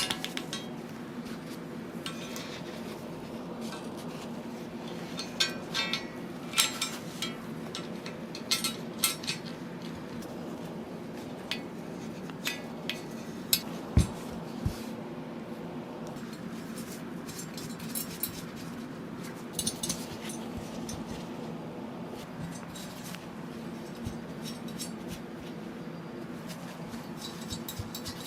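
Small hard parts and tools clicking and clinking against each other as PC components are handled and fitted, in scattered taps with one heavier knock about halfway through, over a steady low hum.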